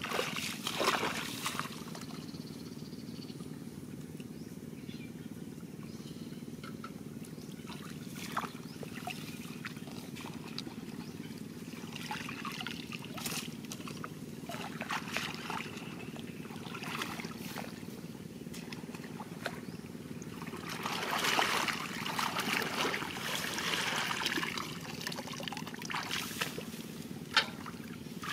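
Shallow muddy water splashing, sloshing and dripping as a woven bamboo basket is dipped and lifted and bare feet wade through it, in scattered short splashes with a longer spell of sloshing about three-quarters of the way through. A steady low hum runs underneath.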